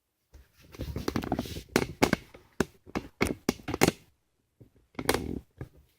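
Hands handling assembly parts and wiring: a quick run of clicks, taps and knocks with rustling, a pause, then a shorter burst of clicks about five seconds in.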